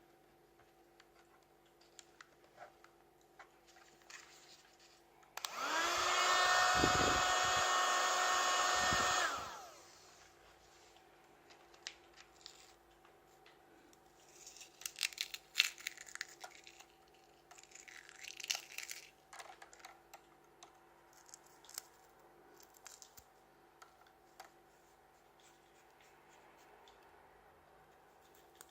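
Mini USB vacuum cleaner's small motor switched on: it spins up to a high steady whine, runs for about four seconds, then winds down. Scattered clicks and handling rattles follow.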